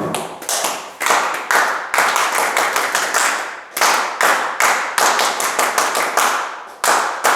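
Paó, the ritual hand clapping of Umbanda: people clapping in sharp rhythmic runs of several claps a second, broken by short pauses.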